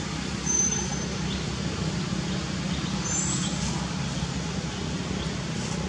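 Steady low outdoor rumble, with two brief high-pitched peeps, one about half a second in and one about three seconds in.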